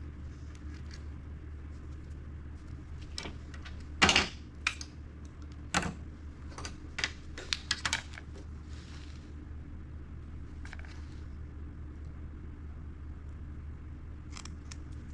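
Sharp clicks and clacks of a hand crimping tool and small wire connectors being handled while crimping butt connectors onto car harness wires. The loudest snap comes about four seconds in, with a quick run of clicks around seven to eight seconds in, over a steady low hum.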